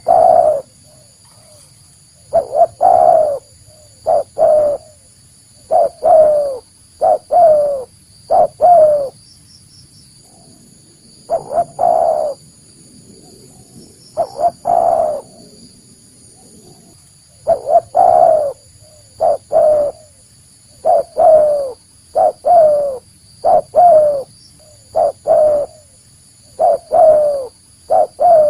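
Spotted dove (tekukur) cooing in repeated phrases: a few short notes, then a longer falling coo, with brief pauses between bouts.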